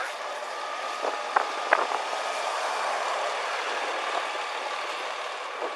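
Steady vehicle noise, with a few sharp clicks between one and two seconds in and another near the end.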